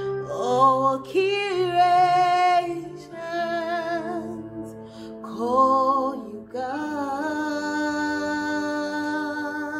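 A woman singing a slow worship song in several long phrases, holding notes with sliding pitch, over a steady held backing chord.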